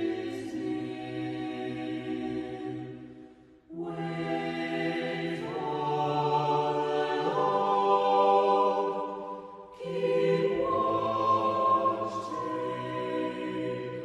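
Choir singing a slow meditative chant in long, held chords, with short breaks between phrases about four and ten seconds in.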